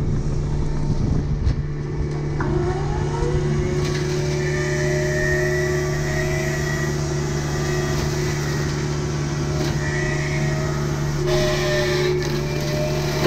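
Kubota U55-4 mini excavator's diesel engine running steadily while the MTL XC5 hydraulic brush cutter spins up, a whine that rises in pitch about two seconds in and then holds, dipping briefly near the end.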